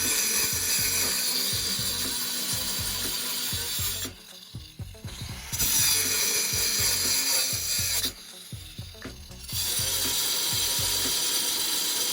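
Vulcan MigMax 215 MIG welder laying weld on steel, the arc crackling steadily in three runs. It stops twice for about a second and a half between beads.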